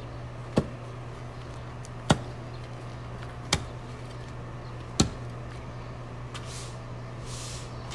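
Hammer blows at a building site: four sharp strikes about a second and a half apart, over a steady low hum. A soft hiss swells near the end.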